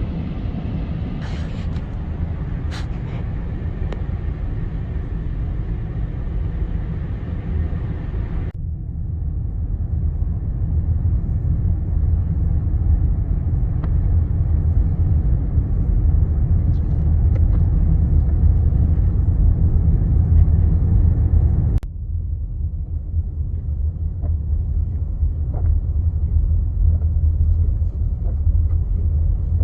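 Steady low rumble of a car driving, heard from inside the cabin: road, tyre and engine noise. The sound changes abruptly twice, losing its upper hiss about eight seconds in and shifting again a little past twenty seconds.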